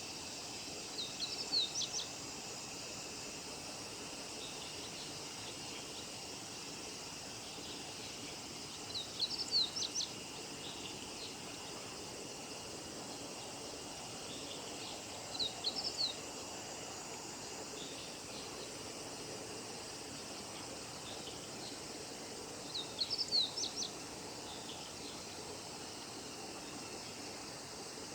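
Male meadow bunting singing: four short songs of rapid, high chirps, each about a second long and roughly seven seconds apart.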